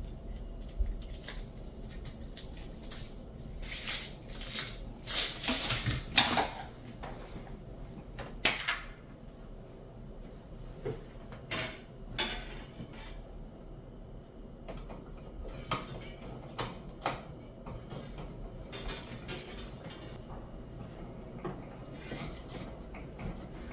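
Handling noises: scattered clicks and knocks with short bursts of rustling and scraping, busiest in the first half.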